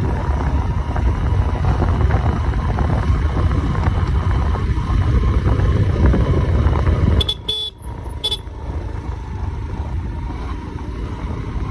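A motor vehicle travelling on the road, with a heavy low rumble of engine and road noise. The rumble drops off abruptly about seven seconds in, followed by a few sharp clicks and a quieter, steady run.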